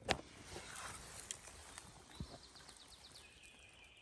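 Footsteps on dry leaf litter and twigs on the forest floor: a sharp twig snap right at the start, light rustling and crackling, and a dull step a little over two seconds in.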